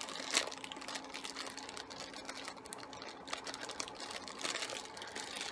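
Small blind-box packaging being worked open by hand: a run of light clicks, rustles and crinkles, with one sharper click about a third of a second in.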